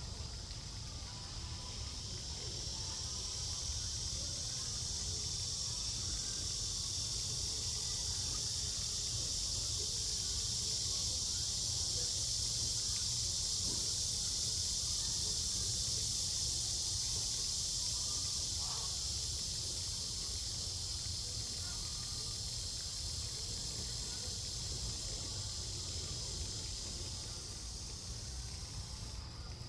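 Steady, high-pitched outdoor insect chorus that swells and then eases off, over a low background rumble.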